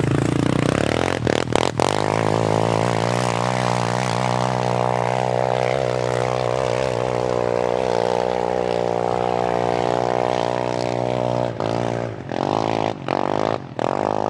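ATV (quad bike) engine running at steady revs, then revved in a series of short blips near the end. A few sharp knocks come about a second in.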